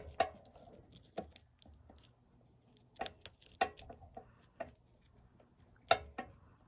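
Scattered light clicks and taps from a carburetor's metal throttle slide and throttle cable being handled, as the cable end is worked out of the slide by hand.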